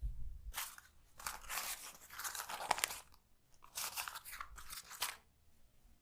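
Hands rubbing and squishing oil-soaked hair against the scalp close to the microphone: two spells of crackly rubbing, the first about two and a half seconds long, the second about a second and a half.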